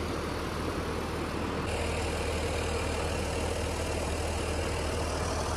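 Steady, even rushing noise, like the sound of the ocean.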